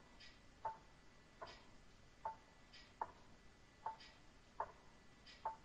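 Faint, even ticking, a little more than one tick a second, some ticks higher and some lower.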